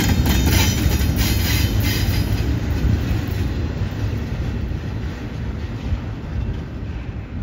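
Double-stack intermodal container cars rolling past on the rails, with wheels clicking for the first few seconds. The noise fades steadily as the rear of the train pulls away.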